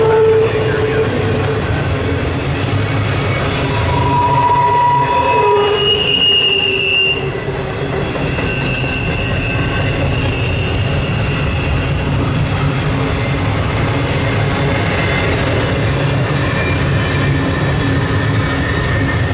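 Double-stack intermodal freight cars rolling past, with a steady rumble of steel wheels on rail. Over it, wheels squeal in several high, held tones that come and go.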